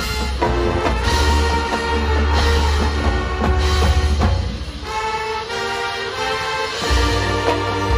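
High school marching band playing its field show: sustained brass chords over percussion with a heavy, deep bass. The deep bass drops out for about two seconds past the middle and comes back about seven seconds in.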